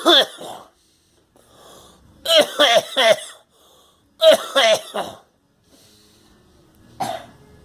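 A person coughing in fits: a cough at the start, a run of three coughs about two seconds in, another run of three about four seconds in, and one short cough near the end.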